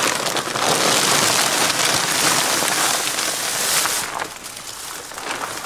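Sulfur granules pouring out of a plastic sack into a plastic barrel, a dense rain-like hiss that dies away about four seconds in.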